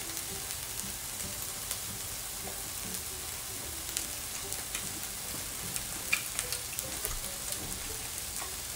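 Lamb chops and scallops sizzling steadily on a tabletop grill plate, with scattered small crackles and ticks.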